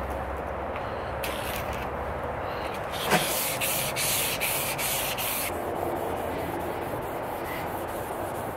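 Sandpaper on a block being rubbed back and forth by hand along the flat of a 1084/15N20 Damascus steel chef knife blade held in a vise, hand-sanding toward a 600-grit finish. The rasping strokes run steadily, with a light knock about three seconds in and a stretch of harsher, brighter strokes at about three to four a second just after it.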